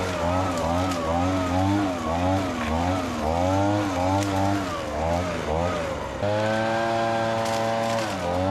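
Small two-stroke engine of a handheld garden power tool running and working, its pitch wavering up and down about once a second; near the end it holds a steady pitch for about two seconds.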